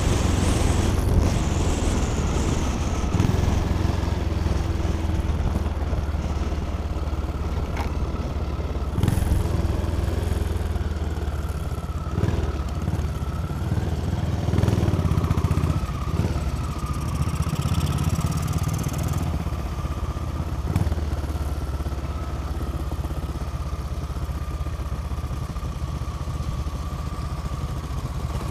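Motorcycle engine running as the bike slows off road speed, with wind rush on the microphone for the first couple of seconds, then running at low revs as it rolls slowly, with a few light knocks.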